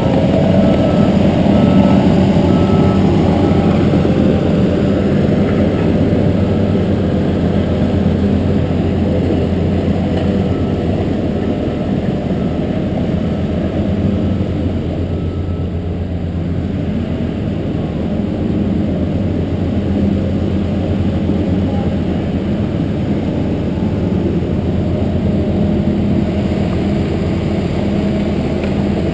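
Heavy diesel construction machinery running steadily, with a backup alarm beeping at a steady pace for the first half, then stopping.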